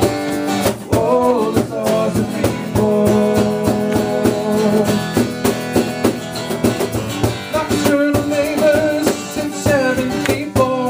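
A live band playing an instrumental passage of a song: guitar notes held and bent over a steady beat.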